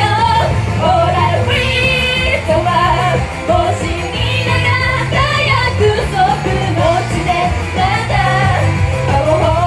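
Female idol vocals singing a Japanese pop song over a loud backing track with a steady beat.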